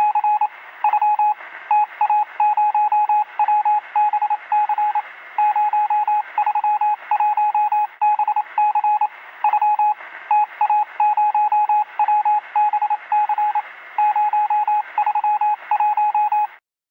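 Morse code: a single steady beep tone keyed on and off in short dots and longer dashes, with pauses between letters, over a steady hiss. It stops shortly before the end.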